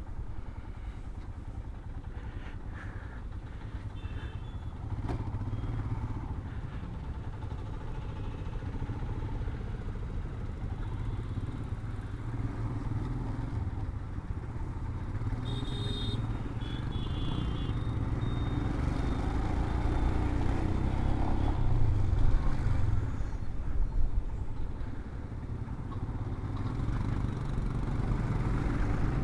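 Royal Enfield motorcycle being ridden at road speed, its engine and the road noise running steadily without a break.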